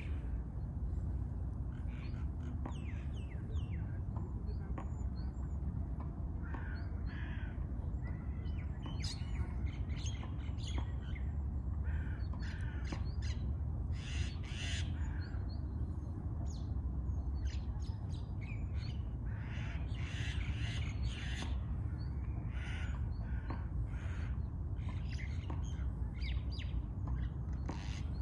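Many birds chirping and calling together in a spring chorus, with short chirps and harsher calls throughout, over a steady low rumble.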